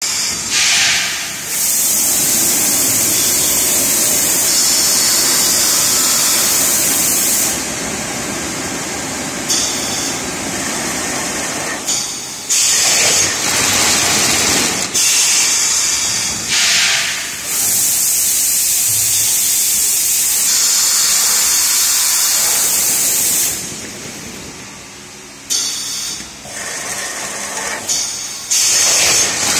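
Cooling tower fill forming machine running: two long stretches of loud, high air hiss of about six seconds each from its pneumatic system, with shorter hisses between them and choppier short bursts near the end.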